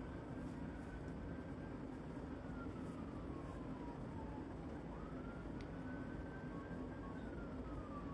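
Faint emergency-vehicle siren wailing in slow falls and rises of pitch, over a steady low hum of background noise.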